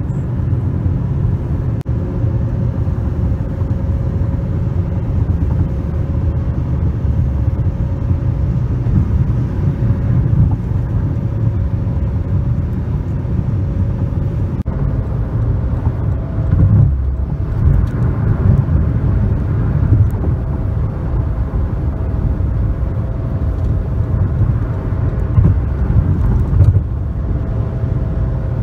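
Steady road and engine noise heard from inside a car travelling at freeway speed: a continuous low rumble with a faint steady hum above it.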